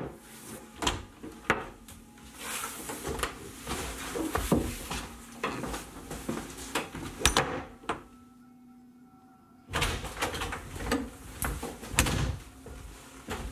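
Interior door sounds: knocking on the door, then the door being opened and shut, with scattered knocks and thumps.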